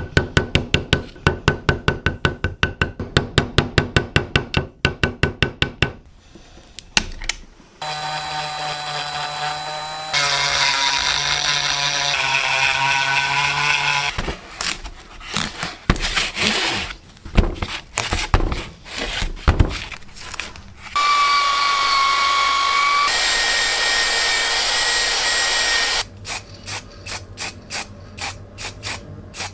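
Fast light metal taps, about five a second, as a small hammer peens a pin fixing the wire wrap on a hammer handle. Then a small cordless drill runs in two steady spells, its pitch stepping, with scattered clicks and knocks between them and soft ticking near the end.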